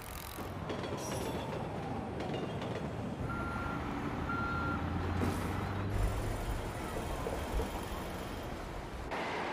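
Garbage truck's reversing beeper sounding two short beeps, over the truck's diesel engine running and street noise, with a short hiss of air brakes about five seconds in.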